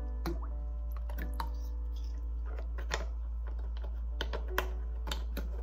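About a dozen light, irregular clicks and taps, like small hard objects being handled, over a steady low hum.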